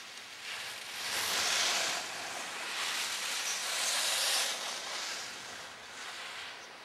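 Skis sliding and scraping over packed snow: a hiss that swells about a second in, again around three to four seconds in, and fades near the end.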